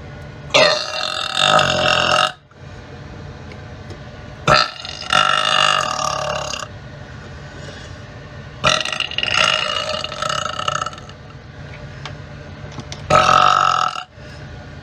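A person belching loudly four times, about four seconds apart, each long, drawn-out belch lasting one to two seconds.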